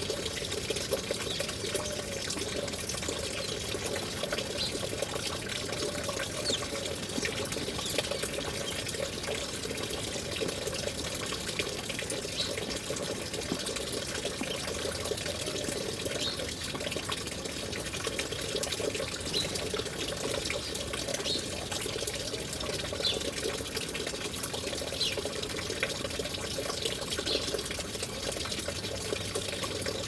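Steady rushing water, the sound of a waterfall.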